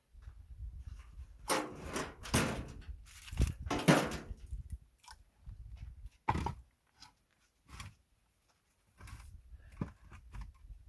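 Pine firewood logs knocking and scraping as they are handled and stacked: a cluster of heavy clunks and scrapes about two to four seconds in, then scattered lighter knocks.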